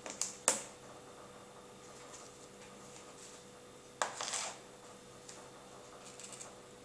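Small clicks and knocks from hands handling a hard plastic mussel-shell lure and a plastic bait dish on a tray: two sharp clicks right at the start, a short clatter about four seconds in, then a few faint ticks.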